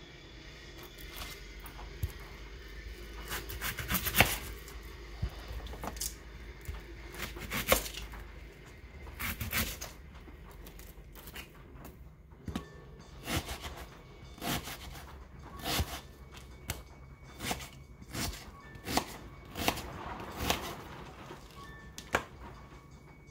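Kitchen knife cutting onion on a thin plastic cutting mat over a wooden counter: scattered knocks and scrapes at first, then a run of chopping strokes about once a second in the second half. Quiet background music underneath.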